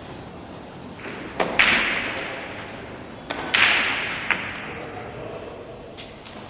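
Billiard shot in five-pins billiards: a cue strikes the ball, then a run of sharp clicks and knocks as the balls hit each other and the cushions and knock over the small pins in the centre of the table. The two loudest knocks, about a second and a half and three and a half seconds in, each fade over about a second.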